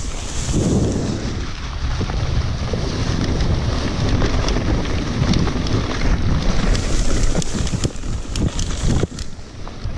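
Wind buffeting the microphone of a handlebar-view camera on a mountain bike riding downhill, with tall grass swishing against the bike and many short rattles and knocks from the bike over rough ground. The noise eases briefly near the end.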